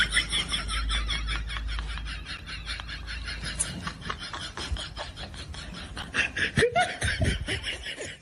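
A meme laughing sound effect: rapid, high-pitched laughter in quick pulses, about five a second, fading after the first few seconds, with a few short voice sounds near the end.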